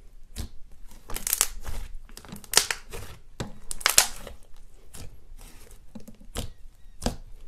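Fingers pressing and kneading thick, fluffy white slime, giving irregular squishing crackles. Several denser crackly bursts come a little over a second in and around the middle.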